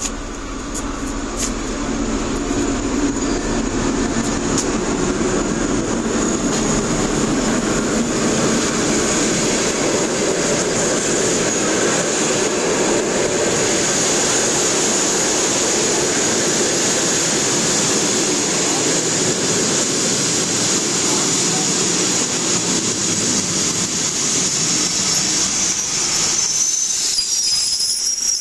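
Passenger train pulling into a station: the carriages rumble past along the platform with a steady high squeal of wheels and brakes. Near the end the squeal grows louder and slides slightly lower as the train slows toward a stop.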